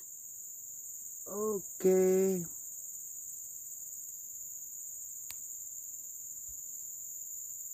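Steady, unbroken high-pitched chirring of insects, with a single faint click about five seconds in.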